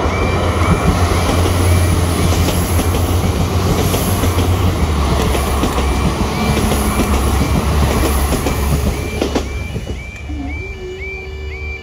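Northern Ireland Railways CAF diesel multiple unit passing over a level crossing. Its underfloor diesel engines run, and its wheels clatter over the rail joints, loud until about nine and a half seconds in, then dying away. Under it, the crossing's warbling alarm repeats steadily throughout.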